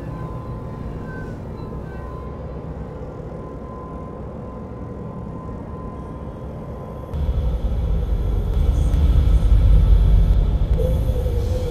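Horror film sound design: a low droning rumble under a thin steady high tone. About seven seconds in the tone stops and a much louder deep rumble swells in, building for a few seconds, and a wavering tone enters near the end.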